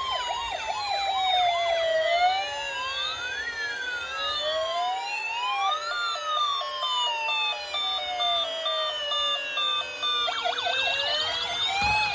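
Electronic toy sirens from battery-powered toy emergency vehicles, several playing at once. Slow rising and falling wails overlap throughout, with a fast yelp near the start and again near the end, and a two-tone hi-lo pattern in the middle.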